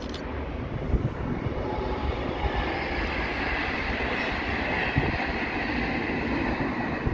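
A train running past on the rails: a steady rumble of wheels, with a higher whine from the wheels and rails coming in about halfway through and a couple of sharp knocks.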